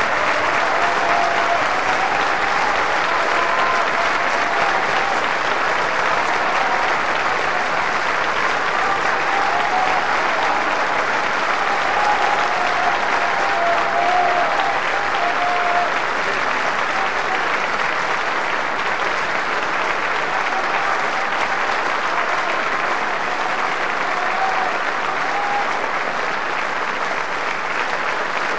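Large opera-house audience applauding steadily, with a few shouts rising over the clapping now and then.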